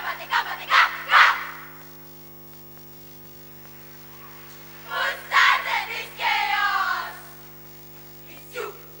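A girls' choral speaking group voicing lines in unison: a short phrase, a pause of about three seconds where only a steady electrical hum is heard, then a second phrase with drawn-out, sung tones. A mains hum runs underneath.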